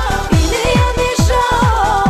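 Turbo-folk dance music: a quick, steady electronic kick drum beat under a wavering, ornamented lead melody.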